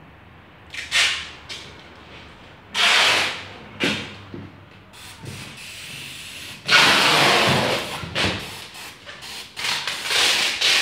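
Compressed-air tool hissing in about five separate bursts, the longest lasting over a second about two-thirds of the way through.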